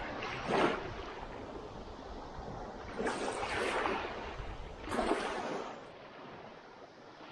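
Small sea waves washing onto the shore, the surf swelling and falling back three times: a short surge just under a second in, a longer one around three to four seconds in, and another about five seconds in.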